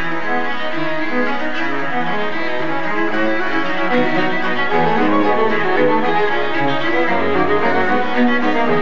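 Background music played on bowed strings, several held notes sounding together and moving slowly from chord to chord, with a low bass line joining about five seconds in.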